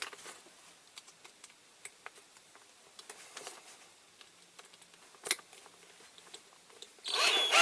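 Faint small clicks and taps of tools and a diecast toy car being handled while the drill bit is changed for a bigger one, with one sharper tick about five seconds in. A short, louder burst of noise comes near the end.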